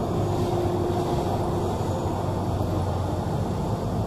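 Street traffic noise: a steady background with the low hum of a vehicle engine running nearby.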